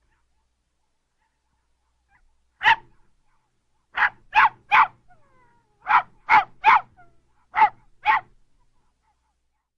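Small dog barking in short, sharp, high-pitched yaps: a single bark about two and a half seconds in, then quick runs of three, three and two barks.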